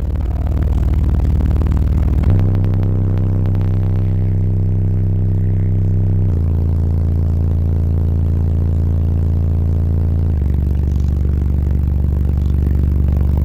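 Nine 15-inch car subwoofers playing very deep, loud bass notes, each held for several seconds and then stepping to a new pitch about two, six and ten seconds in. The car's body panels rattle and buzz against the bass, most clearly around the first pitch change.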